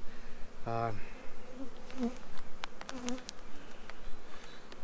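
Carniolan honeybees buzzing from an open hive, with a few sharp knocks of the steel hive tool and wooden frames about two and a half to three seconds in.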